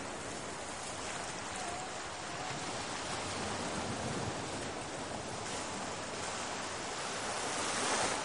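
Steady rush of wind over the microphone of a camera carried aboard a radio-controlled plane in flight, swelling briefly near the end.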